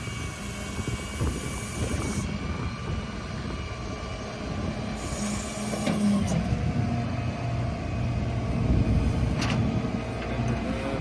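Rollback tow truck with its engine running steadily, over a rattling, clattering noise.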